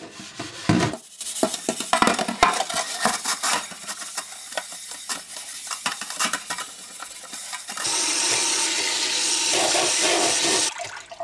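Metal scourer scrubbing burnt-on grease off a ceramic oven dish with cleaning paste, in quick repeated strokes. About eight seconds in, tap water runs steadily for a few seconds, then cuts off.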